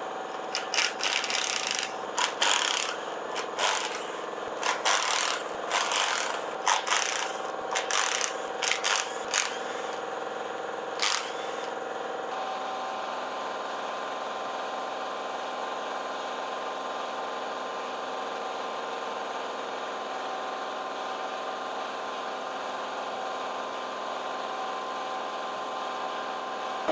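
A dozen or so short, sharp bursts and clanks of tool work on an engine in the first half, over a steady machine hum that carries on alone for the rest.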